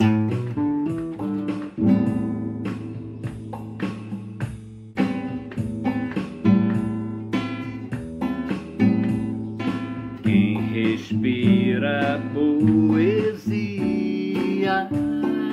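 Music: an instrumental intro on strummed acoustic guitar, with a wavering higher melody line joining about ten seconds in.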